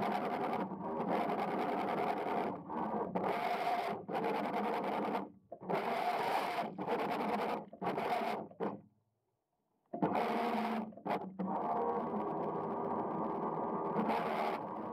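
Waverunner Mark 3 bait boat's electric drive motors and propellers whirring steadily, heard through the underwater camera. The sound drops out briefly several times and cuts out completely for about a second around nine seconds in.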